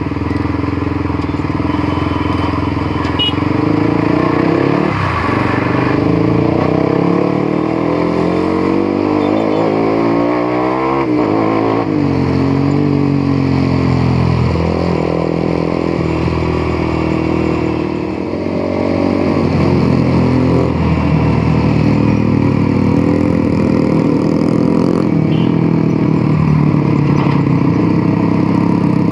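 Motorcycle engine running under way, its pitch rising and falling as it speeds up and slows. There is a large drop and climb in revs about ten seconds in, and a brief dip near eighteen seconds before it pulls up again.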